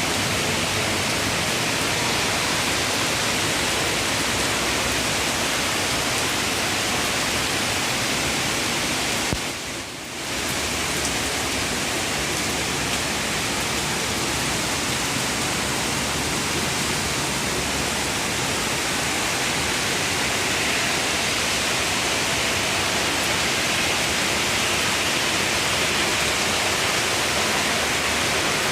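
Heavy rain pouring down, a dense steady hiss that briefly drops in level about ten seconds in.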